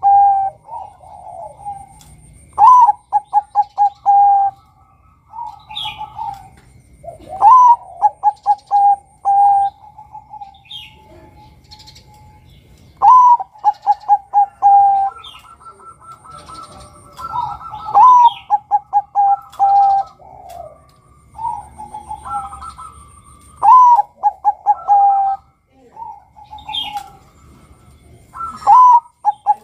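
Male zebra dove (Bangkok perkutut) cooing its song six times, about every five seconds. Each phrase is a rising note, a quick run of short notes and a longer held coo. Softer coos and faint high chirps from small birds come in between.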